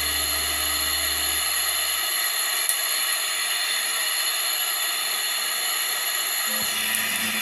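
Portable gas brazing torch flame hissing steadily while a leaking copper pipe joint on a refrigerator compressor is re-brazed. A low hum stops about two seconds in, and music comes in near the end.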